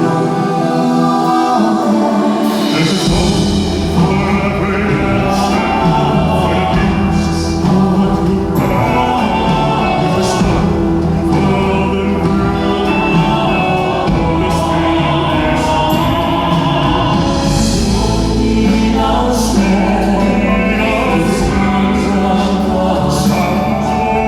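Live concert music: a male vocal quartet singing sustained choir-like harmonies over band accompaniment, with a deep bass line coming in about three seconds in.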